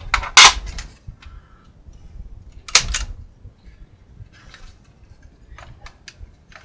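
Sharp mechanical clicks of a Realistic SCT-10 cassette deck's transport controls and mechanism being worked. There are two loud clicks at the start, another a little before three seconds in, and a few lighter ticks near the end.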